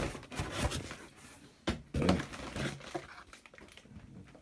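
Parcel packaging being handled and opened: intermittent rustling and crinkling with several sharp knocks, the loudest about two seconds in.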